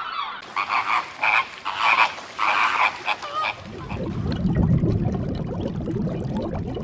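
Frogs croaking: a run of about six short, rasping pulsed calls over the first few seconds, then a low, rough rumbling sound for the rest.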